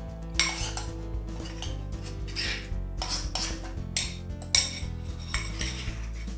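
Metal spoon scraping and clinking against dishes while scooping a soft meat filling, in a series of short strokes, the loudest about four and a half seconds in. Background music plays underneath.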